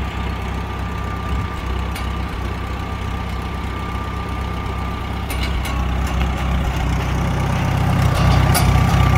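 1940 Farmall H's four-cylinder engine idling steadily, growing louder from about five seconds in.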